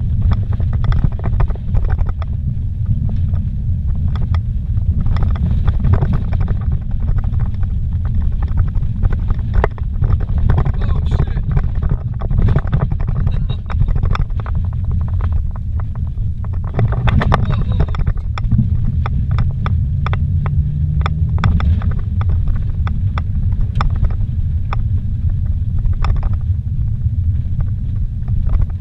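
Car driving fast on a dirt road, heard from inside the cabin: a loud, steady low rumble of tyres and suspension on the gravel, with frequent knocks and rattles. The engine note rises briefly about twenty seconds in.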